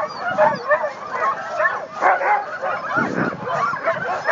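A large pack of harnessed sled dogs barking and yelping all at once, a dense, unbroken chorus of overlapping high calls. This is the clamour of teams waiting at the start line, eager to run.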